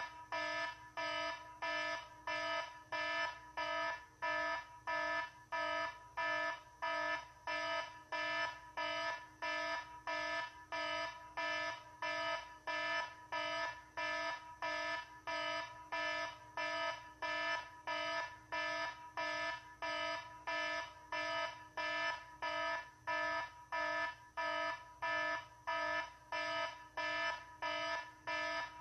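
Electronic alarm beeping over and over in a steady rhythm, about one and a half beeps a second, each beep a pitched tone with several overtones.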